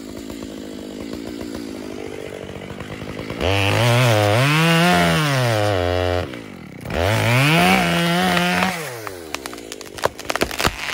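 Two-stroke Makita (Dolmar-built) chainsaw idling, then throttled up twice into a back cut in a sugar maple trunk, a few seconds each time, its pitch sagging and recovering under load. After it drops back, a quick run of sharp cracks comes near the end as the hinge wood starts to give.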